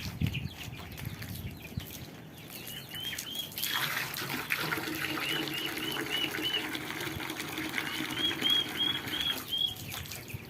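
Young poultry peeping in runs of high, arching cheeps, about three a second. Water runs from a hose from about four seconds in until near the end.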